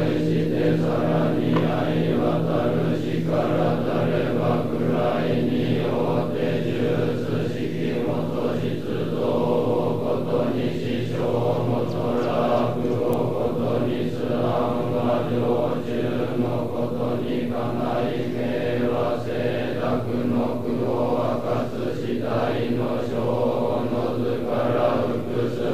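Sōtō Zen monks chanting a sutra in unison, a dense, steady drone of many voices held on a near-constant pitch.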